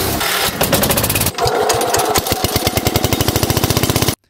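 Small engine running loud and rough, then settling about a second in into an even, rapid beat of roughly a dozen firing pulses a second, and cutting off abruptly near the end.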